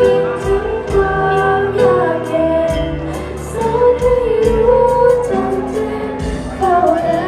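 A song with a voice singing a drawn-out melody over a steady beat and bass.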